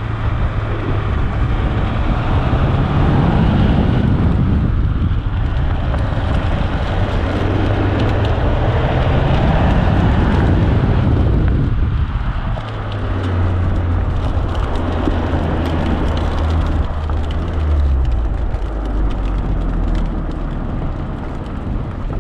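Honda Civic Type R's turbocharged four-cylinder engine revving up and down repeatedly as the car is driven hard through a cone course, with tyre and wind noise on an outside-mounted microphone; it settles into a lower, steadier drone near the end.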